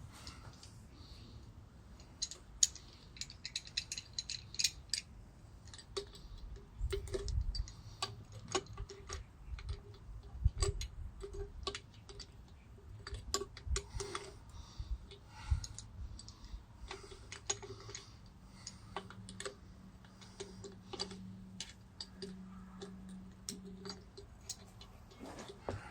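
Irregular light clicks and clinks with a few dull knocks, the sound of hand work on the metal parts of a gasoline jackhammer rather than the engine running.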